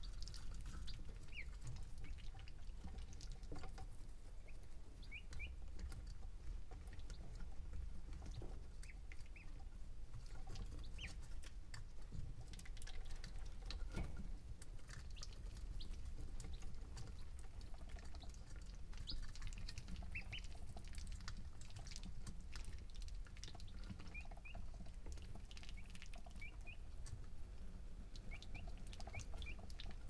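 Baby chicks and ducklings peeping softly now and then in short rising chirps, with scattered light ticks and taps from their feet and beaks. A steady low hum from the brooder heater and wind on the steel barn runs underneath.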